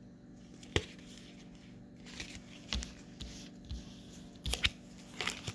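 Oracle card deck handled and shuffled by hand: scattered soft card snaps and rustles that come more often near the end.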